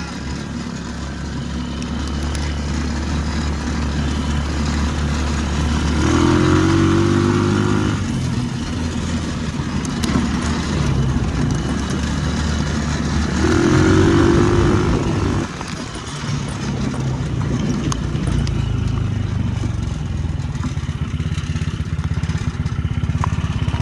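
Single-cylinder four-stroke GY6 engine of a Yerf Dog Spiderbox go-kart running under way, with a rattle. It revs up twice, for about two seconds each time, about six and about fourteen seconds in.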